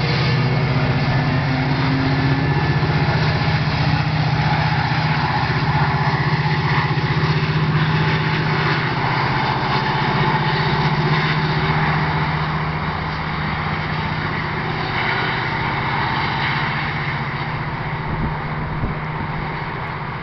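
Metra commuter train's diesel locomotive pulling away under power, its engine running with a steady low drone over wheel-on-rail noise. The sound fades gradually from about twelve seconds in as the train recedes.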